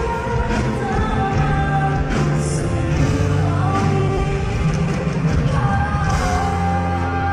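A song performed live: a singer holding sung notes over steady band accompaniment.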